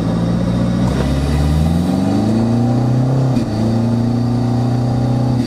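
Tuned Toyota 2KD four-cylinder turbodiesel, heard from inside the cabin, accelerating hard at half throttle. The engine pitch climbs, dips briefly about three and a half seconds in, then holds steady.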